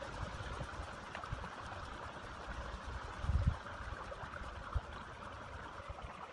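Small stream running and trickling steadily, under irregular low rumbles, the loudest about halfway through, with a few faint clicks.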